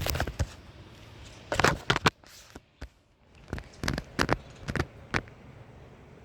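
A run of irregular clicks, knocks and rustles, loudest near the start and around two seconds in, with a quiet gap just after three seconds.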